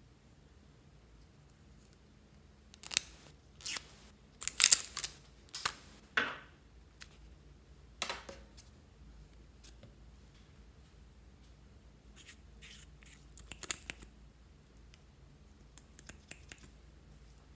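Plastic lipstick tubes being handled, uncapped and twisted: a string of sharp clicks and scrapes in several clusters, the loudest and busiest in the first half.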